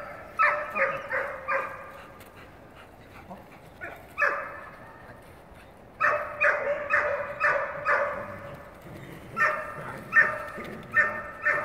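Dog barking in high-pitched yips, in quick runs of several barks with short pauses between.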